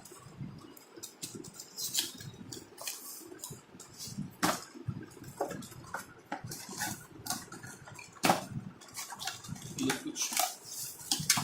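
A cardboard product box and its packaging being opened and handled by hand, with irregular clicks, taps and rustles.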